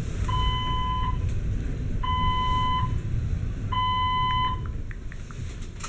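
Elevator cab's electronic signal beeping: three long, evenly spaced beeps about a second and a half apart, one steady tone each, over the low rumble of the cab.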